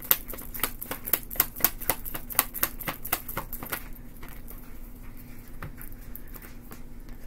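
Tarot deck shuffled by hand: a quick run of card-edge clicks and flicks that thins out about four seconds in, leaving only a few soft card sounds.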